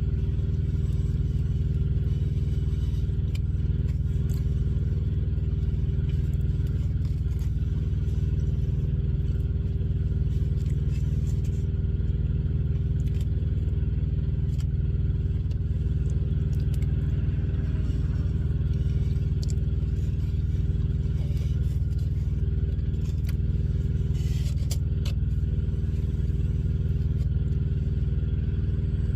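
Vehicle engine running steadily: a constant low hum that holds one pitch, with a few faint clicks.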